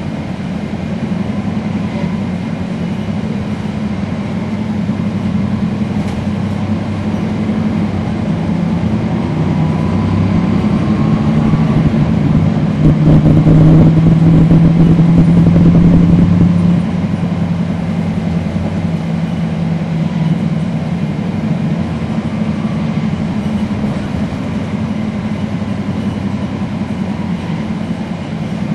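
Cummins ISL9 diesel engine of a NABI 40-foot transit bus running while the bus is under way. The engine note builds, is loudest for a few seconds past the middle, then drops off suddenly.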